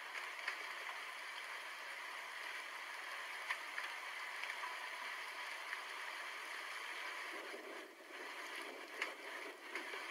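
Steady rain falling: an even hiss with scattered sharp drop ticks.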